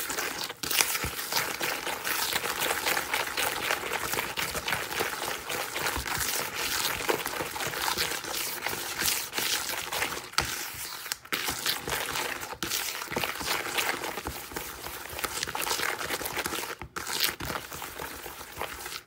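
Bare fingers squishing and kneading raw egg with sugar in a bowl: a continuous wet, gritty squelching and scraping against the bowl, broken by a few brief pauses.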